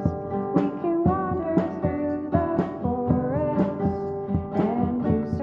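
Background music: a melody with gliding notes over a steady beat of about two beats a second.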